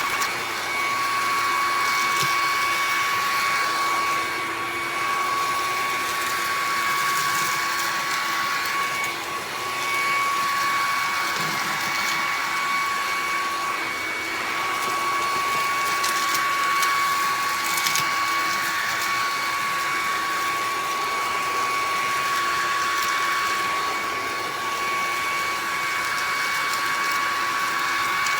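Bissell PowerClean cordless vacuum running steadily: a high, steady motor whine over the rush of air.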